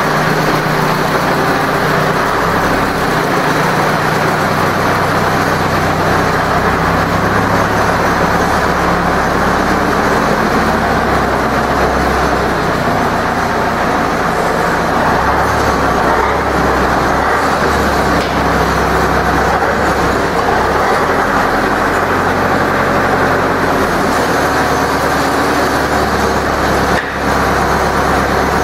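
Zetor 7245 tractor's four-cylinder diesel engine running while the tractor is manoeuvred in reverse, its engine note stepping up and down several times with the throttle.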